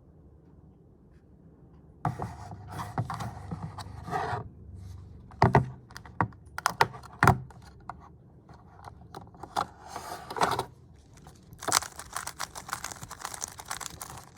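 Hands handling a GAN 11 M Pro speedcube and its packaging: irregular plastic clicks, rustles and scrapes starting about two seconds in, with a few sharp loud clacks and a quicker run of clicking near the end.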